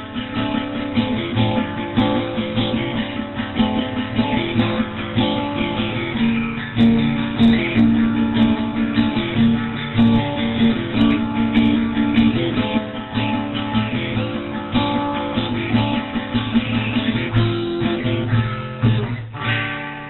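Intro music played on acoustic guitar, plucked and strummed, fading out near the end.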